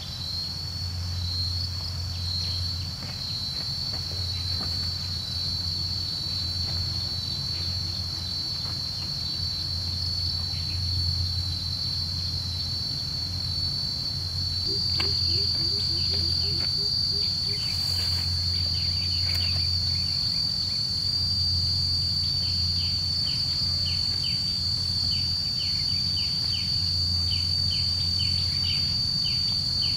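Insects keeping up a steady high-pitched drone, with a low hum underneath. Quick light ticks come in about halfway through and grow more frequent toward the end.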